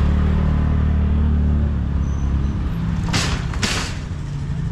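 Motorcycle engine idling with a steady low hum that drops off about two seconds in, followed by two short whooshes of noise half a second apart.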